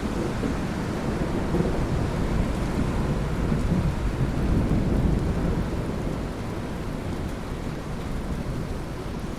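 Steady rain with low thunder rumbling, which swells in the first half and eases off after about six seconds.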